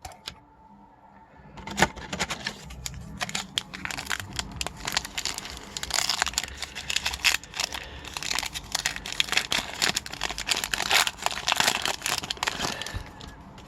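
Foil wrapper of a hockey card pack being torn open and crinkled: a dense run of crackling that starts with a sharp snap about two seconds in and thins out near the end.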